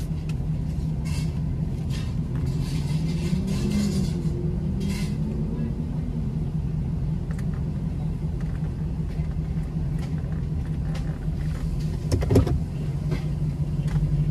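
A truck idling, heard from inside the cabin: a steady low hum and rumble, with a single knock about twelve seconds in.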